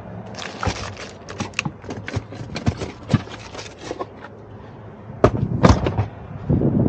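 A run of irregular sharp clicks and knocks, with two louder knocks about five seconds in.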